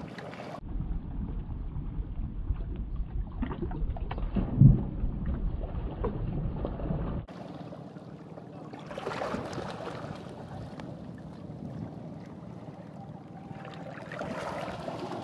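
Seashore ambience: a steady low rumble with the wash of sea water, and one short louder thump about four and a half seconds in. The sound changes abruptly about half a second in and again about seven seconds in.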